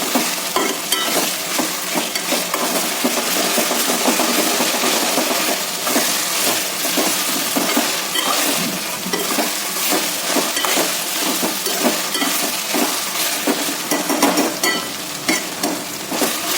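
Chopped potatoes, peas and onion with ginger-garlic paste sizzling in hot oil in a pan while being stirred continuously. The steady sizzle is broken by frequent short clicks and scrapes of the stirring utensil against the pan.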